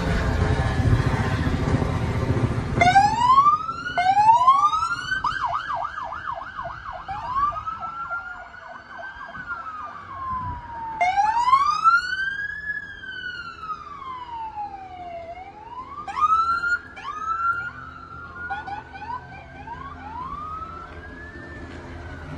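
Police car sirens from a slow procession of patrol vehicles: several electronic sirens overlapping, sweeping up and down in long wails and quick yelps. They start about three seconds in, after the low sound of passing vehicle engines.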